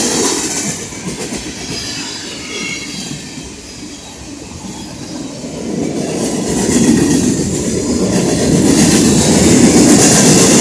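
Union Pacific manifest freight train's cars rolling past at high speed: a continuous rumble and rattle of steel wheels on the rails. It eases off a few seconds in and builds louder again through the second half.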